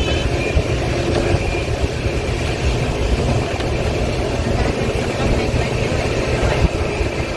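Steady low rumble and running noise of an Indian express passenger train, with no distinct horn, clank or other single event standing out.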